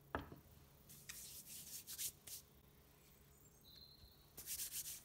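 A single knock as a plywood template is set down on a wooden workbench, followed by short bursts of hands rubbing and sliding across a wooden slab's surface.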